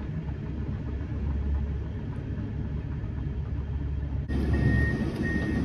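Steady low rumble of an engine idling. About four seconds in, a high repeating beep sets in, about one beep every 0.7 s.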